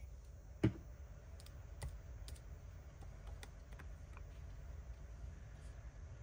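Hands pressing down and handling cardstock pieces on a craft mat: one sharp tap less than a second in, then light scattered clicks and taps of paper.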